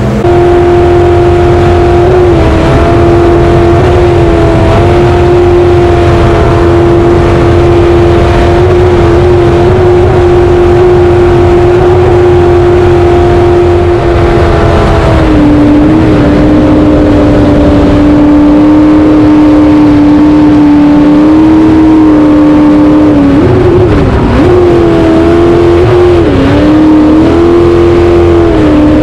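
Race jet boat's engine running hard under way, heard onboard over the rush of water and wind: a steady, loud, high engine note. The note drops a little in pitch about halfway through, then dips and climbs back several times near the end.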